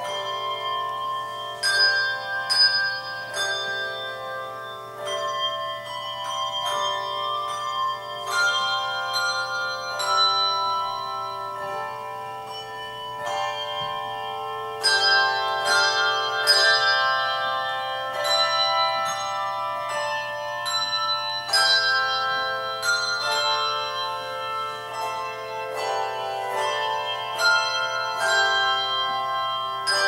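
Handbell choir ringing a hymn: chords of struck handbells that ring on and overlap, with fresh strikes about every second.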